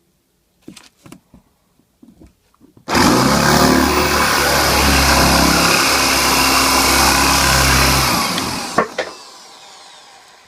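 Electric drill boring out the old knot from a shaving brush's handle: a few light knocks, then the drill runs at speed for about six seconds, stops with a click and winds down.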